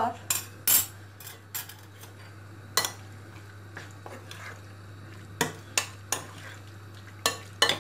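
Metal spoon stirring and tossing chicken in soy sauce and starch in a glass bowl, clinking against the glass about ten times at uneven intervals, with quieter mixing between the clinks.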